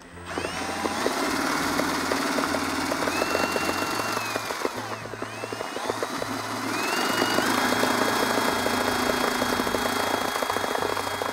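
Cordless drill with a paddle mixer running at speed, whipping a liquid mix into foam in a plastic bucket. The motor whine climbs in pitch a few times as the trigger is squeezed, eases briefly near the middle, and carries a fast rattle from the paddle churning the liquid.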